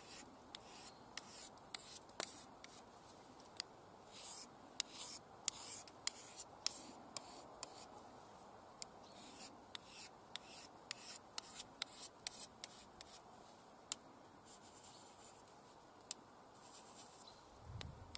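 Knife steel edge drawn in short, light strokes across the fine side of a Fallkniven DC3 pocket sharpening stone, a quiet scratch with each stroke at an uneven pace. These are the finishing passes that take off the burr before stropping.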